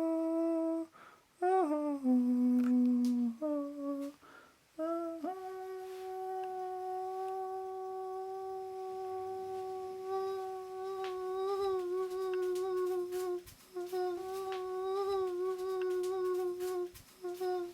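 A person humming: short sliding notes broken by brief pauses, then one note held steadily for about eight seconds from about five seconds in, then shorter notes again.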